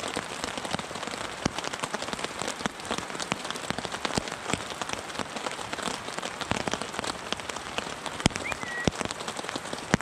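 Rain pattering steadily on a tarp overhead, with many separate drops striking the fabric as sharp ticks. A short high chirp sounds about eight and a half seconds in.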